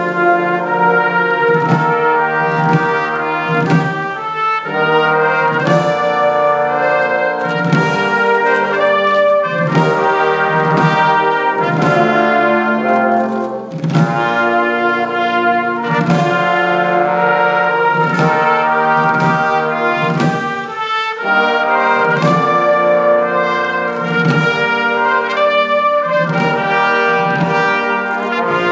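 Police band of trumpets, trombones and saxophones playing sustained chords and melody, with regular beats from field drums.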